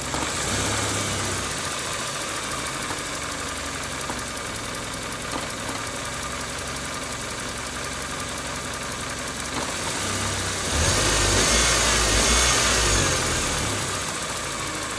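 Toyota 4A-FE inline-four engine idling with a clanking knock, the fault the owner is asking about. About eleven seconds in it speeds up for a couple of seconds and then settles back to idle.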